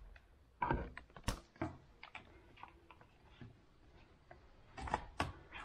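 Scattered, irregular light clicks and taps of small bicycle parts and their plastic packaging being handled, a few of them sharper than the rest.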